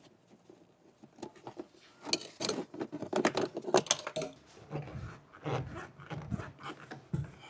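Hands working a Jeep Wrangler JK rear door's check strap loose: a quick run of clicks, rattles and scrapes, then a few dull knocks near the end.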